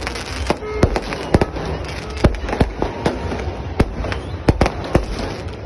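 Fireworks going off in quick, irregular succession: a dozen or more sharp bangs and pops over a steady background din.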